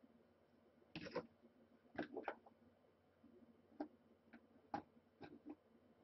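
Faint, scattered clicks and light knocks from handling a small screwdriver-type tool and a plastic VR headset, about seven in all, the loudest about one and two seconds in.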